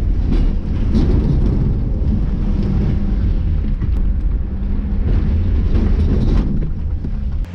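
Off-road 4x4's engine running under load close to the microphone, with a heavy rumble and knocks and rattles from the vehicle. It starts and stops abruptly.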